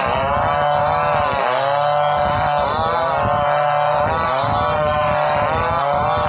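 Two-stroke chainsaws running under load while ripping a log lengthwise. The engine pitch drops and recovers again and again, roughly every second or so, as the bar is worked forward and back through the cut.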